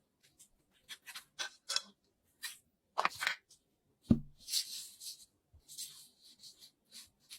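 Kinetic sand being cut and scraped with a tool: a series of short crisp cutting strokes, with a dull thump about four seconds in and a longer scrape after it.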